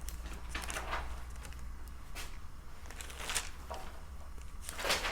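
Room tone: a steady low hum with a few faint scattered rustles and clicks.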